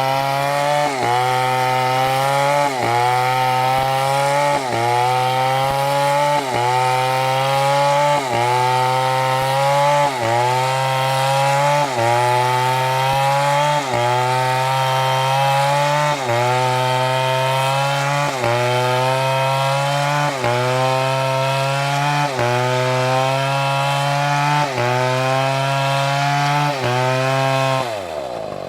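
MS720 chainsaw at full throttle cutting through a thick trunk. The engine pitch sags and climbs back about every two seconds as the bar is worked in the cut. Near the end the throttle is released and the revs fall away toward idle.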